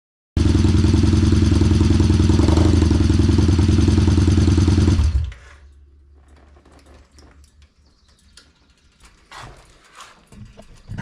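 Excelsior-Henderson Super X V-twin engine running, loud and steady, on its first short run after an oil change to check oil pressure. It cuts in suddenly just after the start and stops about five seconds in, leaving a faint low hum and a few light clicks.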